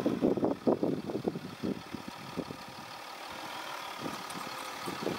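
Land Rover Discovery 4 engine running at low revs as the mud-bound SUV creeps forward over a recovery ladder. Irregular louder rumbles come in the first two seconds, then it settles to a steady low run.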